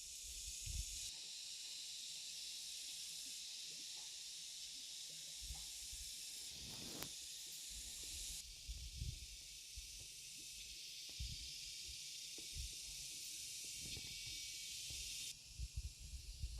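Steady high-pitched outdoor hiss that changes in level abruptly several times, with scattered faint low knocks and rustles beneath it.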